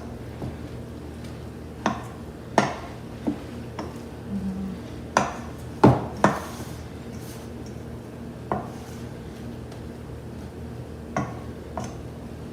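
A utensil clinking and knocking against a mixing bowl while spaghetti is stirred into an egg mixture, in about nine irregular clicks with pauses between them. A steady low hum runs underneath.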